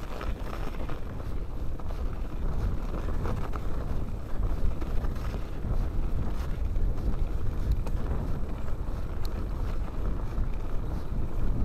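Wind buffeting the microphone over the rumble and rattle of a mountain bike rolling along a snowy, rutted track, with a few faint sharp ticks.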